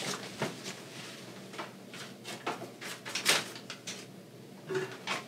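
Scattered light clicks, knocks and rustles of someone handling things at a kitchen counter, over a faint steady low hum.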